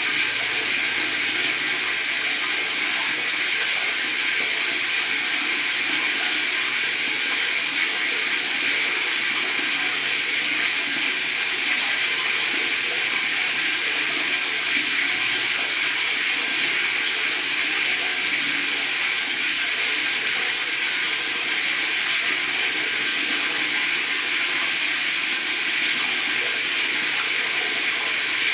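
Tap water running steadily from the faucet into a bathtub, splashing and gurgling without a break.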